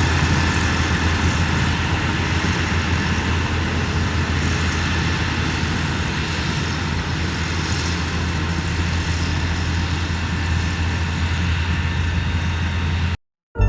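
Diesel engine of heavy road-building machinery running steadily with a deep, even drone. It cuts off abruptly near the end.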